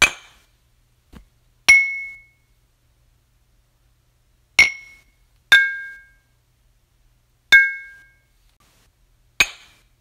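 Glasses clinking together in a cheers toast: six separate clinks at uneven intervals, each a sharp strike with a short ringing tone, plus a faint dull knock about a second in.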